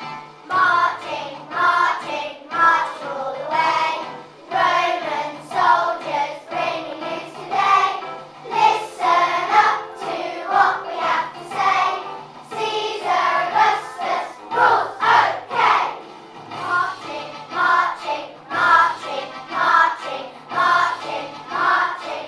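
Children's choir singing a song in short, evenly paced phrases over musical accompaniment.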